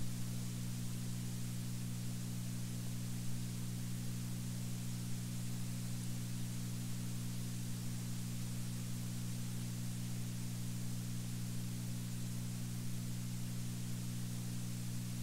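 Steady hiss with a low mains hum and buzz and no speech: the background noise of a 1981 audio recording after the talking has stopped.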